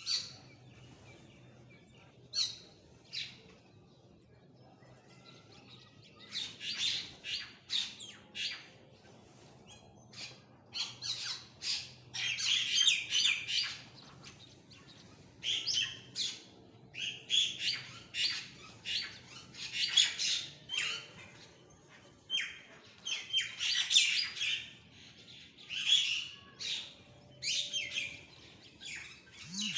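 Birds chirping in quick bouts of short, high calls, with a couple of pauses of about two seconds between bouts.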